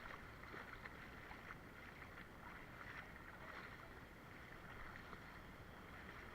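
Near silence: a faint, steady outdoor background hiss with a few light ticks.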